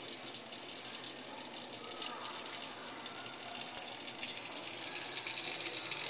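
Kitchen faucet running a steady stream of water into a stainless steel sink, a little louder from about two-thirds of the way in.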